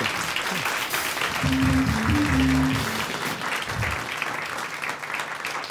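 Studio audience applauding after a punchline, with a short musical sting of a few low notes from about one and a half to three seconds in. The applause thins out toward the end.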